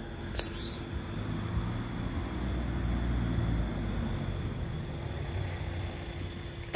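Low road-traffic rumble that swells for a couple of seconds in the middle and fades, over a steady electrical hum, with a brief rustle near the start.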